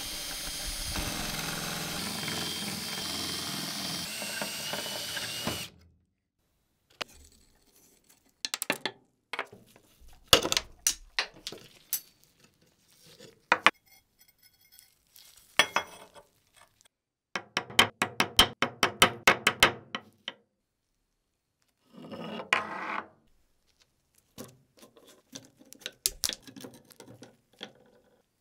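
Power drill running steadily as it drills into a fastener on a rusty metal bracket fixed to a wooden base, stopping after about six seconds. Then comes a series of sharp clinks, knocks and scrapes as rusty metal parts and screws are handled, with a quick run of clicks in the middle.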